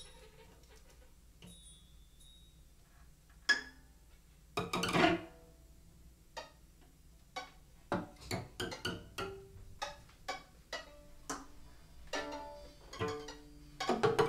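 Sparse free-improvised string playing: violin, viola and cello in scattered short plucked and struck notes. It starts almost empty, has a louder cluster about five seconds in, and grows busier near the end.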